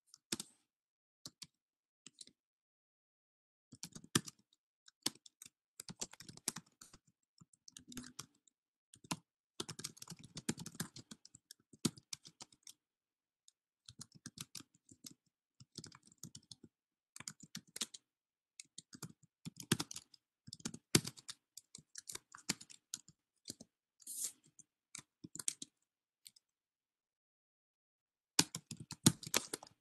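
Typing on a computer keyboard: irregular runs of keystrokes with short pauses between them, falling silent for about two seconds near the end before picking up again faster.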